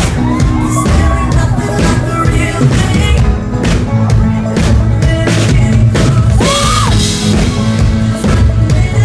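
A live pop-rock band plays loud through a club PA, with drum kit, bass and keyboard, and a male singer's voice gliding up and down over the top.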